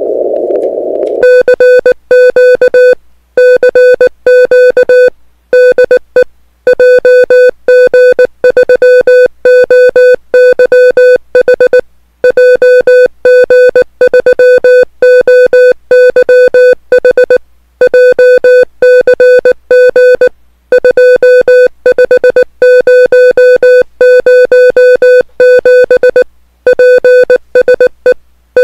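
Morse code (CW) from an amateur radio: a steady tone of one pitch keyed on and off in fast dots and dashes, in groups with short gaps. It follows about a second of narrow receiver hiss at the start.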